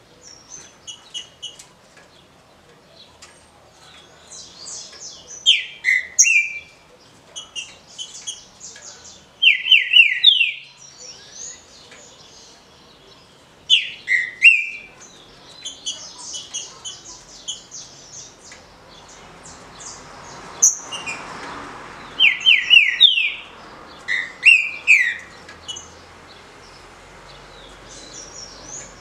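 Green-winged saltator (trinca-ferro) singing its short 'canto fácil' song: brief, loud whistled phrases of a few quick notes, repeated every few seconds, with softer high chirps in between.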